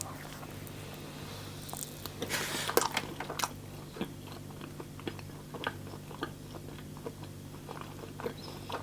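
A person biting into a slice of cold pizza about two seconds in, then chewing, with scattered small mouth clicks.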